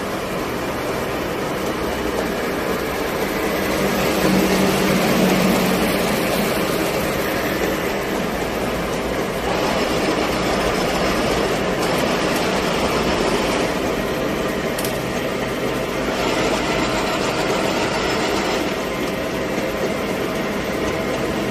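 Dahlih DL-GH950 vertical and horizontal milling machine running with a steady mechanical whir of motor and gears. It changes in tone several times and is loudest about four to six seconds in.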